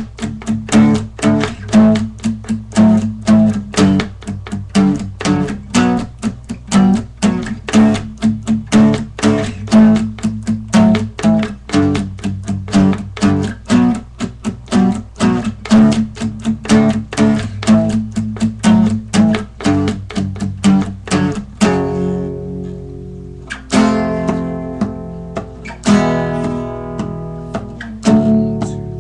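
Guitar played with a steady, fast picking rhythm over a repeated low note. A little over two-thirds of the way through it changes to single strummed chords left to ring, about two seconds apart.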